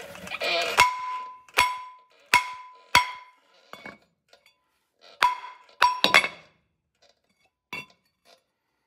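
Cast-iron brake rotor and hub assembly banged hard, again and again, to knock the rotor loose from the hub. Each blow rings with a short metallic tone: four blows in the first three seconds, three more in quick succession around the middle, and a last one near the end.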